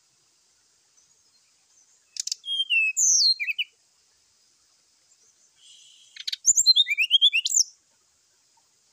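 Brown-chested jungle flycatcher singing its agitated fighting song: two short phrases of quick, high, sliding whistles, about two seconds in and again about six seconds in, each opened by a sharp click.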